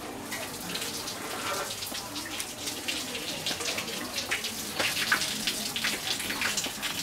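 Milk being poured from a metal can into a funnel and hose held to a baby elephant's mouth: a continuous splashing of liquid with many small spatters.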